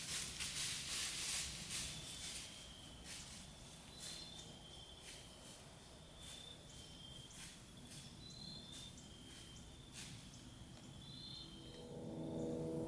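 Crickets chirping in short high chirps about once a second, with scattered ticks like twigs or leaves. A hissing rush of noise fills the first two seconds, and soft music with ringing, gong-like tones comes in near the end.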